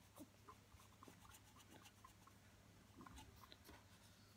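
Faint scratching of a colouring pen or crayon on cardboard, in small scattered strokes over a low steady hum.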